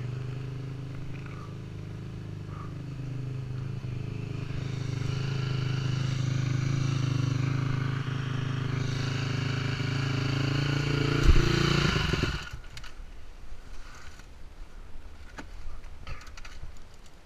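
KTM 250 dirt bike engine running under load, growing louder, then a heavy thump about eleven seconds in and the engine cuts out abruptly a second later as the bike crashes into a gully and stalls. Afterwards only faint scattered rustles and knocks.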